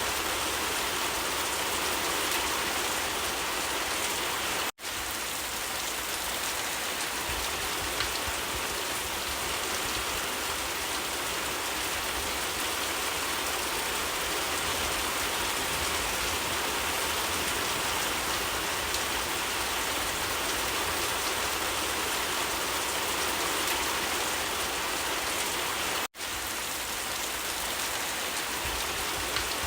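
Steady heavy rain falling on surfaces, an even hiss of many drops. It cuts out for an instant twice, about five seconds in and again near the end.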